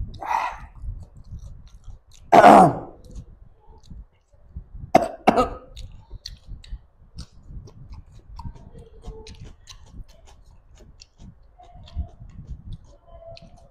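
A man coughing and clearing his throat while eating: a short cough at the start, a loud hacking cough about two seconds in, then two quick coughs about five seconds in, followed by faint clicks of eating.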